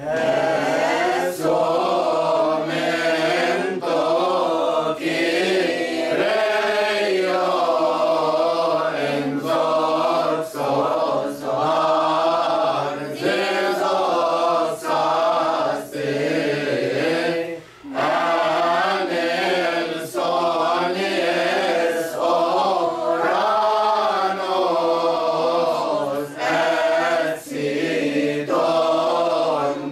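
Mixed choir of men and women chanting a Coptic church hymn in unison, without accompaniment. The drawn-out notes waver, and there are short breaks between phrases.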